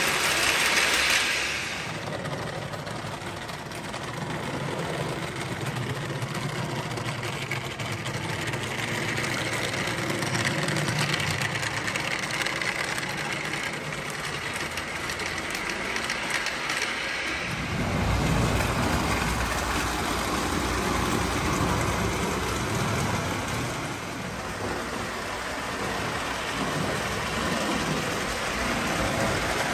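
Two prewar American Flyer O-gauge electric locomotives pulling tinplate passenger cars on three-rail track: a steady whir and rattle of the motors and metal wheels on the rails, turning deeper and louder about two-thirds of the way through.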